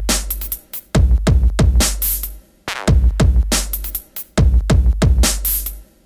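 Electronic background music with a drum-machine beat and deep bass.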